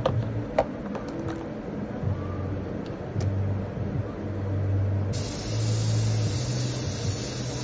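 A steady low machine hum with a few sharp clicks early on, then a steady hiss starts about five seconds in and keeps going.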